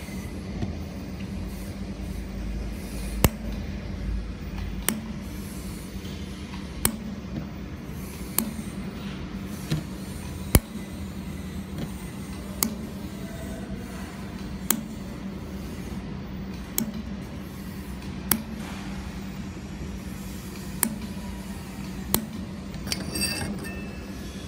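400 W handheld fiber laser welding machine at work: a steady low hum with about a dozen sharp clicks, one every one and a half to two seconds, and a short crackle near the end.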